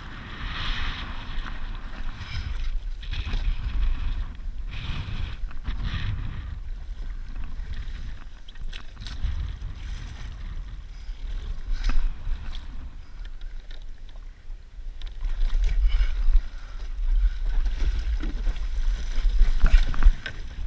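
Wind rumbling on the microphone over water rushing and splashing along the hull of a Laser sailing dinghy under way, gusting harder in the last few seconds.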